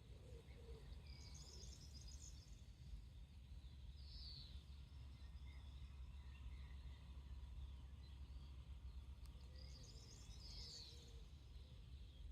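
Faint rural ambience: small birds chirping and trilling here and there, with clusters of calls about a second in, around four seconds, and again near the end, over a low steady rumble.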